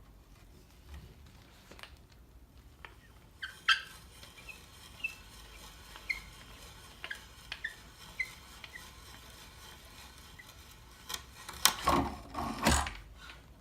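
Antique hand brace with a wood auger bit squeaking in short chirps, roughly one a second, then a few seconds of louder scraping and rasping against wood near the end.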